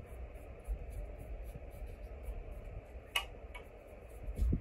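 A makeup brush being dry-brushed over a plastic terrain model: a faint, scratchy brushing, with a click about three seconds in.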